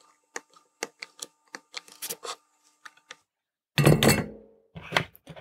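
Soldering iron tip and solder wire tapping on the PCB's pads, light clicks several times a second as solder is placed on each pad pair. About four seconds in comes a loud thump, then a smaller one, as the board is handled and turned around.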